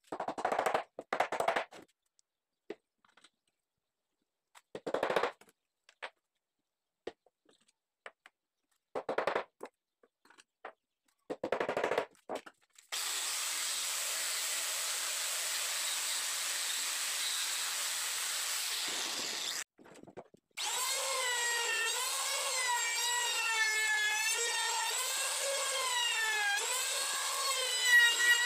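Several short knocks and scrapes of wooden pieces being handled. About halfway through, an angle grinder with a sanding disc runs steadily against the wood for about seven seconds and then stops. A moment later a trim router starts and cuts along a wooden edge, its whine wavering up and down in pitch under the load.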